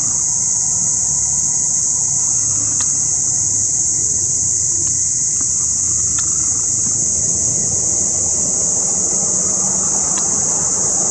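Night insect chorus: a steady, high, even shrill with no break. Beneath it lies a faint low rumble, and a few light clicks come through it, about three, five, six and ten seconds in.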